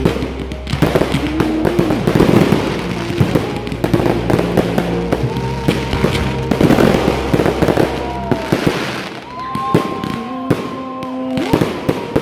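Fireworks display: a rapid, continuous barrage of launches and aerial bursts, many sharp bangs close together.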